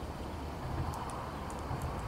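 Steady low rumble and hiss of wind on the microphone, with brief faint high chirps from about a second in.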